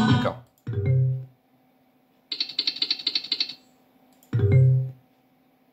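Video slot machine game sound effects: a jingle cuts off at the start, then a short low electronic tone, a rapid run of ticks about two seconds in as a spin plays out, and a second short low tone at about four and a half seconds.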